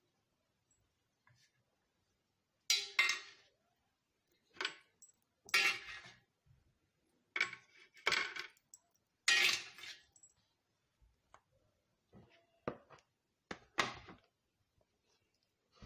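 Clear plastic steamer tray clinking and clattering as wontons are set on it and it is handled: a series of short, irregular knocks, loudest in the middle.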